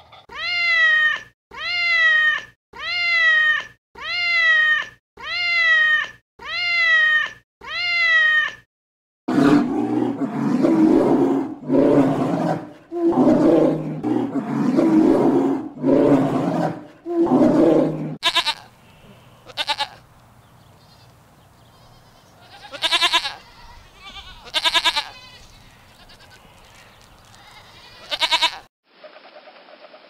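A series of animal calls. First comes eight identical calls about a second apart, each falling in pitch. Then a run of lower, rougher calls, and finally a few short, spaced-out higher calls.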